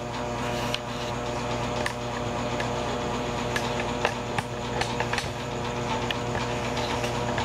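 A steady mechanical hum, with a few light clicks and taps over it.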